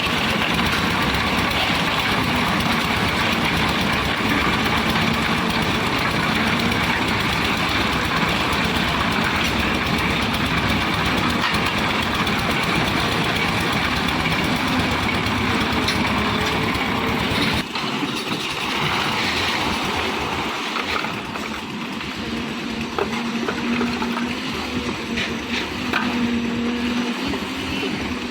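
Concrete mixer machine's engine running steadily. About two-thirds of the way through, the deep rumble falls away and the sound turns lighter and a little quieter.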